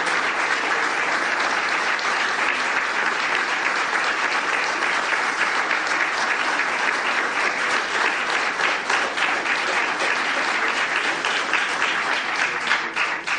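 Audience applauding steadily, thinning into scattered individual claps near the end.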